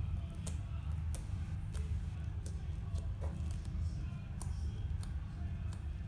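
Fluffy slime being handled, making scattered small sharp clicks and pops, about one or two a second, over a steady low rumble.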